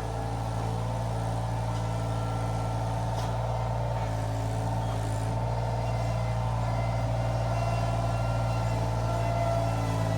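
Iron Rhino IR1200 mini skid steer's engine running steadily, a constant low hum with a busy midrange drone that grows slightly louder toward the end.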